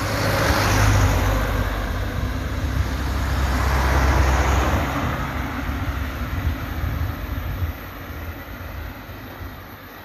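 Cars passing close by on an asphalt road, their tyre and engine noise swelling about a second in and again around four seconds, then fading away.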